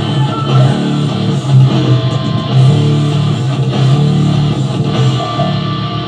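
Heavy rock music with an electric bass guitar playing low notes under distorted electric guitar; it eases off a little near the end.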